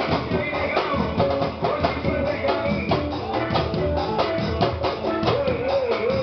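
A band playing at a soundcheck, the drum kit strikes dense and prominent, with a wavering held note coming in near the end.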